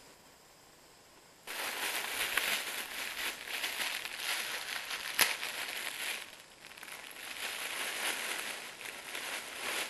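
Clear plastic packaging crinkling and rustling as it is handled and pulled open, starting about a second and a half in, easing briefly past the middle and then picking up again, with one sharp snap about five seconds in.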